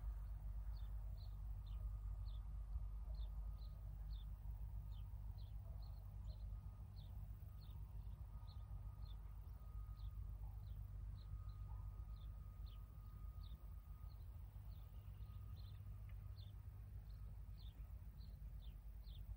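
A bird calling over and over with short, high chirps that fall in pitch, about two a second, over a faint steady low rumble.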